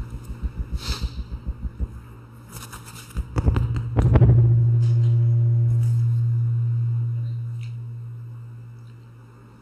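A clip-on lavalier microphone being handled on a shirt front: a rapid low fluttering fades out, then rubbing and knocks on the mic, followed by a steady low electrical hum that slowly fades away.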